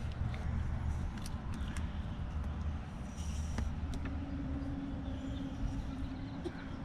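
Outdoor wind rumbling on the microphone, with a few light clicks and a faint steady hum coming in about four seconds in.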